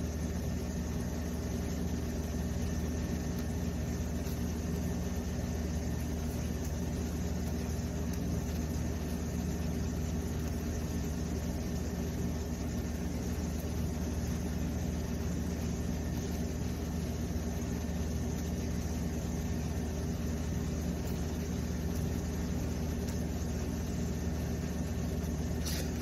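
A steady, unchanging low mechanical hum with several fixed pitches, like a motor running continuously.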